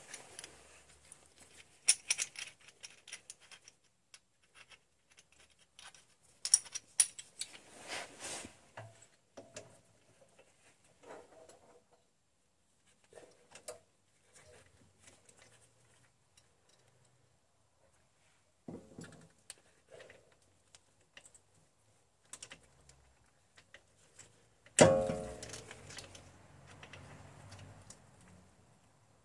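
Metal clicks and clinks as a rear brake caliper is handled and seated over its pads on the bracket of a disc brake, with one loud metallic clang that rings on briefly near the end.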